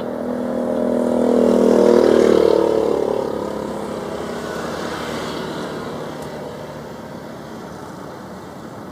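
Jet airliner engine noise at the airport, swelling to a peak about two seconds in and then fading to a lower steady hum.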